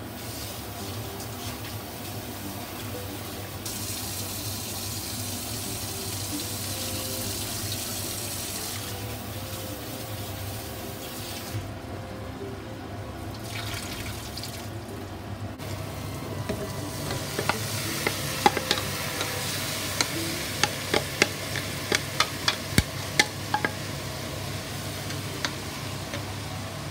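A kitchen tap runs into a stainless-steel sink for several seconds as chopped chayote is rinsed. Later comes a quick run of sharp clacks, about two a second, as the chayote is stirred in a pot with a wooden spatula. A steady low hum runs underneath.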